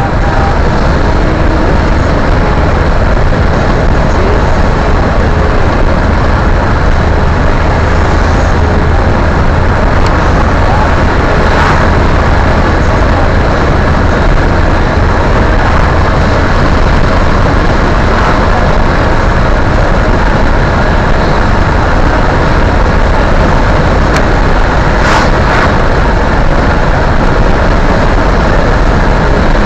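Steady cabin noise of a moving car picked up by a dash camera's microphone: a loud low rumble of engine and road with tyre hiss over it. Two brief louder rushes come about twelve and twenty-five seconds in.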